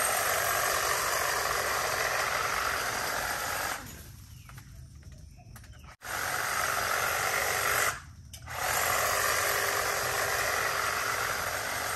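Powered hedge trimmer running steadily while trimming a ficus benjamina hedge. It stops for about two seconds just before the four-second mark, runs again, and pauses briefly about eight seconds in before carrying on.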